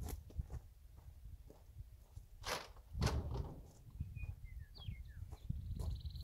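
Crunching steps and handling noise on gravel, over a low rumble of wind on the microphone, with a couple of louder knocks about two and a half to three seconds in. A small bird chirps a few times, then gives a short high trill near the end.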